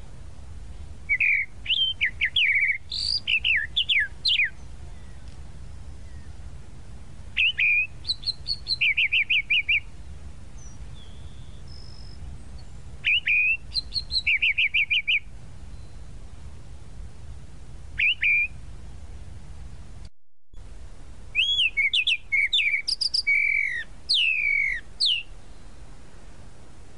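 Tropical mockingbird (Mimus gilvus) singing: phrases of a few seconds of varied whistled notes, some sliding and some in fast runs of the same note repeated, with pauses of a few seconds between phrases. A steady low rumble of background noise runs underneath.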